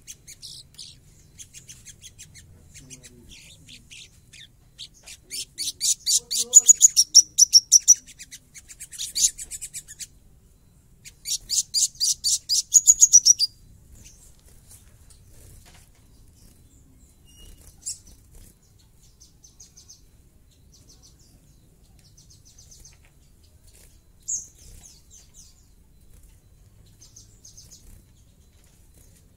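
Sunbird singing a harsh, rapid trill of closely packed high notes in two loud bursts of several seconds each, then only a few soft scattered chips.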